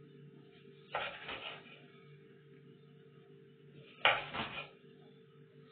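A kitchen knife slicing through a tomato onto a bamboo cutting board: two short runs of quick cutting strokes, about one second and four seconds in, the second the louder. A steady low hum runs underneath.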